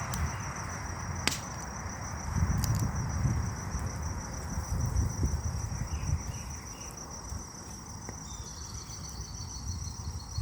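Insects trilling steadily in a high, finely pulsing tone, over a low rumbling noise with a few sharp clicks.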